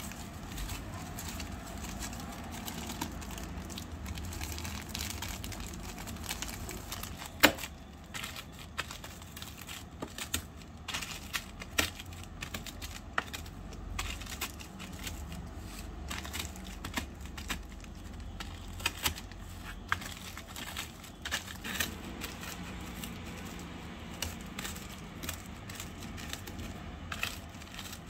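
Plastic zip-lock bag crinkling as biscuits inside are snapped and crushed to crumbs with a miniature rolling pin. Scattered sharp crackles run throughout, with one loud snap about seven and a half seconds in.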